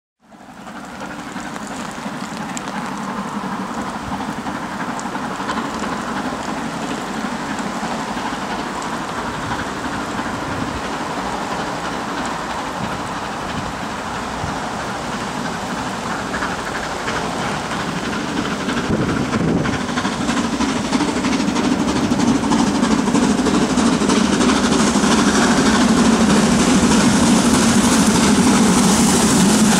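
BR Standard Class 7 'Britannia' 4-6-2 steam locomotive hauling a passenger train on approach, growing louder about two-thirds of the way in as it nears. Under it runs a steady hiss of rain.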